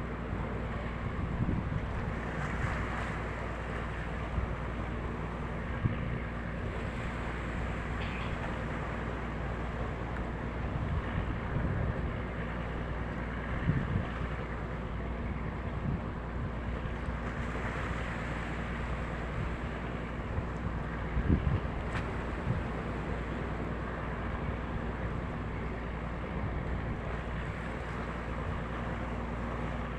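Steady low drone of a vessel under way on open water, with wind buffeting the microphone in short thumps and gusts, the strongest about 21 seconds in.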